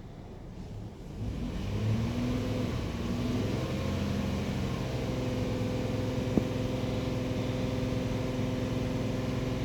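Ford Explorer engine cranking and catching about a second in, revving up briefly, then settling into a steady idle just after an oil change. A single sharp click about six seconds in.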